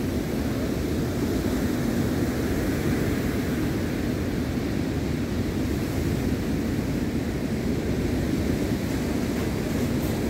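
Sea surf washing onto a pebble beach, a steady noise with wind blowing on the microphone.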